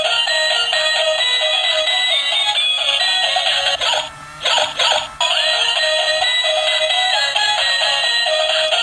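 A tinny electronic melody of clean synthesized tones, a simple toy-style tune. About four seconds in it drops out for roughly a second, with a few broken fragments, then resumes.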